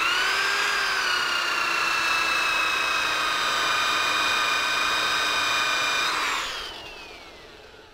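A woodturning lathe motor starts and quickly spins up to speed, then runs with a steady whine while a cotton buffing wheel charged with White Diamond compound polishes the spinning wooden blank. About six seconds in the motor is switched off and winds down, its pitch falling as it fades.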